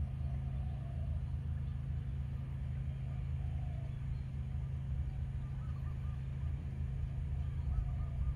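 A steady low mechanical hum, like a nearby engine running, with a few faint short bird calls over it now and then.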